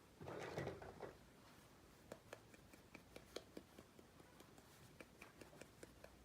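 Faint, scattered clicks and taps of small miniature kitchen toy pieces being handled and set down, after a brief rustle in the first second.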